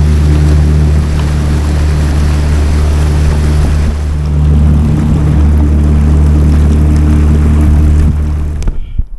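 Motor of an aluminum jon boat running steadily at speed, with water rushing along the hull. The sound stops abruptly near the end.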